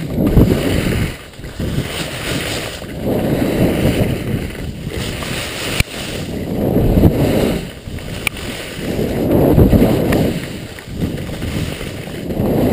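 Skis sliding and scraping over plastic mesh dry-slope matting, a rough low rushing that swells and fades every two to three seconds as the skier turns, with wind buffeting the microphone.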